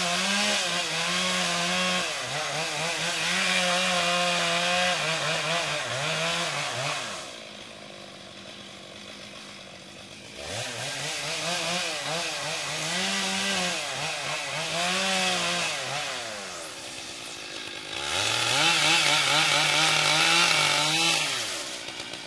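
Stihl MS 660 two-stroke chainsaw with a 36-inch bar cutting brush, revving to full throttle in stretches of several seconds and dropping back toward idle between cuts, with the longest lull about seven seconds in.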